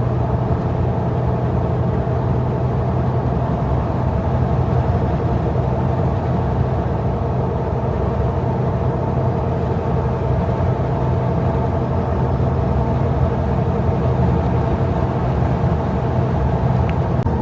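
An old Jeep cruising steadily on a highway, heard from inside the cabin: a constant low engine drone with road and tyre noise, no change in speed.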